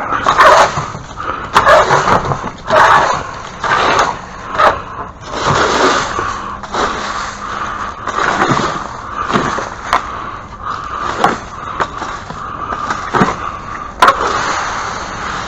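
Repeated sharp knocks and clatter with rough scraping in between, like hard objects being dragged and handled, with a dozen or more distinct knocks.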